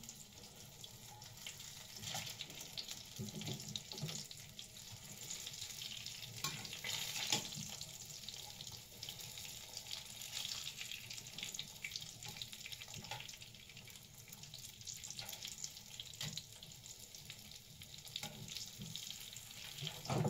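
Food sizzling in a frying pan over a gas burner: a steady crackling hiss, with metal tongs clicking against the pan now and then as pieces are turned and lifted out.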